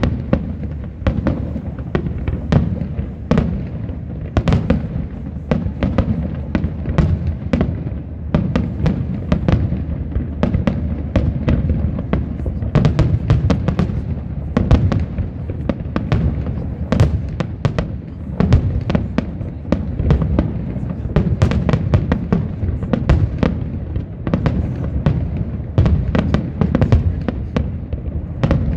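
Fireworks display: a dense, continuous barrage of shell bursts, several sharp bangs and cracks a second over a constant low rumble of echoing explosions.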